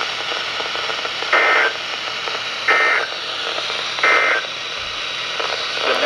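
Handheld NOAA weather radio speaker sounding the Emergency Alert System end-of-message code: three short, identical bursts of warbling digital data tones about a second and a half apart, over steady radio hiss. The bursts mark the end of the severe thunderstorm warning broadcast.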